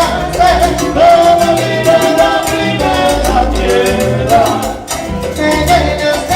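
Salsa band music: melodic lines over a pulsing bass and steady, evenly repeating percussion.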